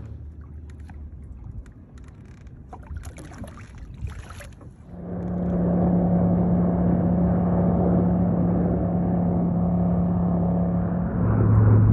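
Light scattered clicking and handling noise for about five seconds, then a steady motor hum starts. The hum holds one pitch and drops to a lower pitch near the end.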